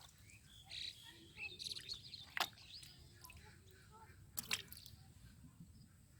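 Birds chirping faintly, with a sharp click about two and a half seconds in and another pair of clicks about four and a half seconds in.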